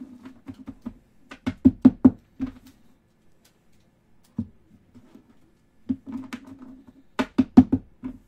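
Stacks of baseball trading cards being handled and knocked on a tabletop: quick runs of sharp clicks and knocks, the main ones about a second and a half in and again near the end, with scattered single knocks between.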